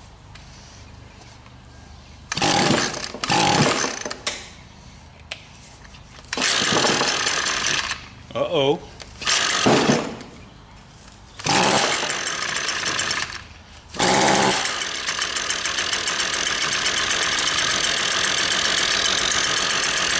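Small two-stroke engine being pull-started: several short sputtering bursts that die out, then it catches about 14 seconds in and keeps running steadily. It runs unusually quietly, which the mechanic takes for a plugged exhaust.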